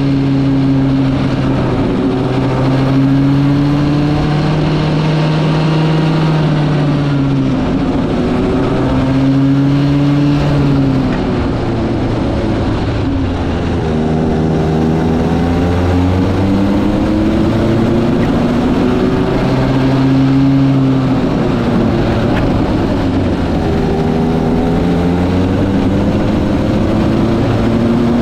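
Go-kart engine running at speed, its pitch repeatedly falling and climbing again as the kart slows for corners and accelerates out of them.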